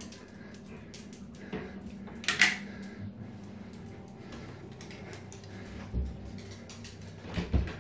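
Quiet household handling sounds: scattered light clicks and knocks, a sharper clack about two and a half seconds in, and a couple of dull thumps near the end.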